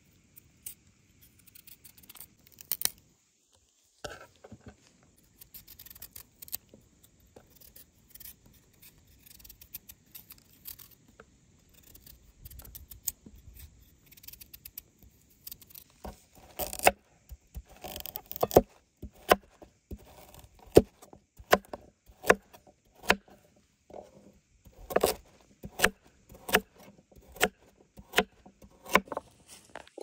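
A carrot being peeled with a small paring knife, faint scraping with light clicks. About halfway in, a chef's knife starts chopping the carrot on a wooden cutting board: sharp knocks of the blade on the board, about one to two a second.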